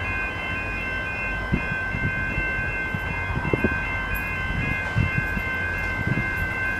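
Two XR class diesel locomotives heading a freight train, heard approaching from far off: a steady low engine rumble with steady high whining tones over it, and a few soft low knocks.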